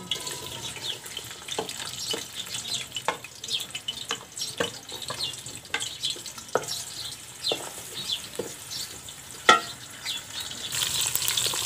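Sliced onions sizzling in hot oil in an aluminium pot as they are scraped in from a plate, with a wooden spoon clicking and knocking against the plate and pot rim. One knock, about nine seconds in, is the loudest, and the sizzle grows louder near the end.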